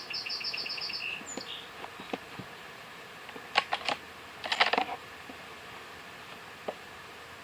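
Rifle handling: a few sharp clicks, then a short burst of clicking and rattling about halfway through, like a bolt-action rifle's bolt being worked. A songbird trills quickly at the very start.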